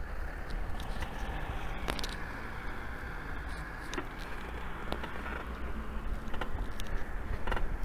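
Riding noise of a recumbent trike on a city street: a steady low rumble of tyres and wind on the microphone, with scattered light clicks and rattles at irregular intervals.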